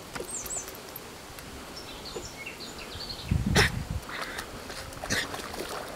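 Small birds chirping, then about three and a half seconds in a loud splash as a Siberian husky paws at the water of a muddy rain puddle, with a smaller splash near the end.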